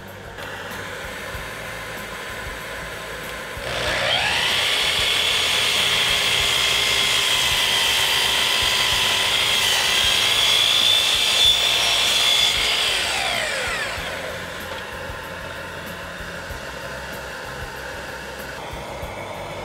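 Sliding compound miter saw motor spinning up about four seconds in, running at speed for about nine seconds while cutting plywood, then winding down with a falling whine.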